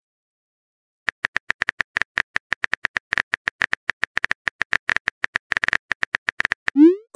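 Simulated phone-keyboard tap clicks from a texting-story app: a fast, irregular run of short clicks, one per typed letter, starting about a second in. Near the end comes a short rising swoosh, the app's message-send sound.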